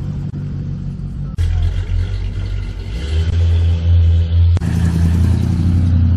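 Car engine running as a car pulls away, getting louder in a step about a second and a half in and again around the middle, with a short click near the end.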